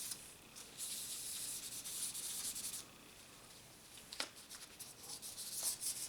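Fine 2000-grit sandpaper rubbed by hand over a pocket knife, a high scratchy hiss in back-and-forth strokes. It pauses for about a second near the middle, then a sharp click and lighter strokes follow.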